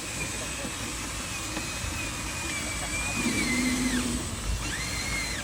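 Radio-controlled excavator's electric motor running with a steady high whine that falls away about four seconds in and rises again near the end as the machine works.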